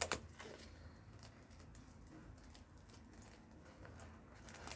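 A sharp click, then scattered faint taps and ticks of small objects being handled, over a low steady hum.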